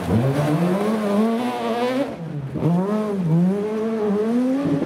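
Rally car engine revving hard as the car accelerates on a gravel stage, its pitch climbing for about two seconds. After a brief dip it is heard again, the pitch falling and then rising through the gears.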